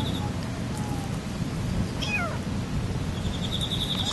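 Young kitten meowing: one short, high-pitched mew that falls in pitch about two seconds in, and another starting right at the end.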